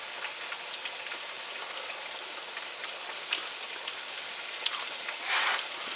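Battered bluegills deep-frying in hot oil: a steady sizzling hiss with scattered pops, and a louder burst of sizzling near the end.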